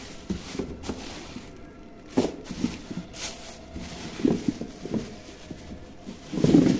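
Thin plastic produce bags crinkling and rustling as vegetables are sorted in a refrigerator vegetable drawer, in irregular handfuls, loudest about six and a half seconds in.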